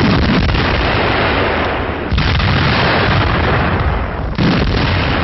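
Heavy field artillery gun firing: three loud blasts about two seconds apart, each trailing off slowly into the next.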